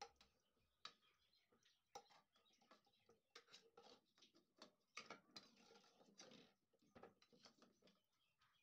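Faint clinks of a steel spoon knocking against a pan and soft splashing of water as boiled eggs are scooped out one by one, with scattered sharp clicks and a longer wash of splashing a little past the middle.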